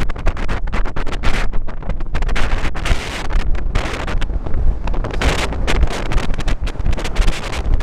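Strong gusty wind buffeting the microphone: a heavy, uneven rumble that rises and falls constantly.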